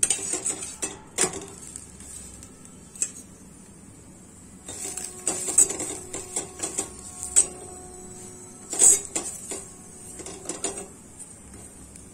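Steel spoon scraping and clinking against a frying pan as a paratha is pressed and worked in the hot pan, in scattered strokes with the loudest clink about nine seconds in.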